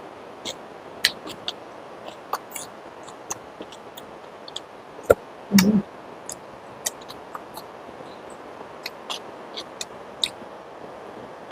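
Close-up mukbang eating sounds: scattered mouth clicks and lip smacks while chewing a meal of rice with curries, with one louder, brief low sound about halfway through.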